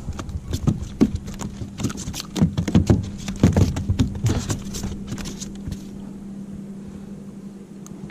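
Rapid, irregular knocks and thuds against a small boat's hull, typical of a freshly landed striped bass flopping in the boat; they die away after about six seconds. A steady low hum runs underneath.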